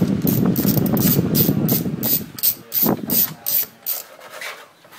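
Hand work at a car's wheel hub and axle end: quick, even scraping strokes, about four a second. A dense rustle under them stops a little over two seconds in, while lighter strokes carry on until near the end.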